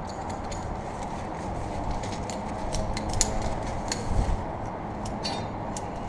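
Light, scattered metallic clinks of climbing carabiners and rope hardware over a steady low rushing of wind on the microphone, with a dull knock about four seconds in.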